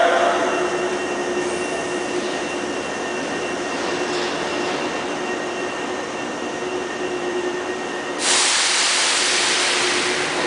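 Hankyu 5100 series electric train rolling slowly past the platform: a steady rumble of wheels and running gear with a faint steady hum. About eight seconds in, a sudden loud hiss starts and slowly fades.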